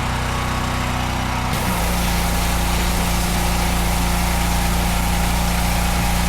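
Pressure washer's small engine running steadily. About a second and a half in, the hiss of the high-pressure spray comes on and the engine note changes, then both run on steadily.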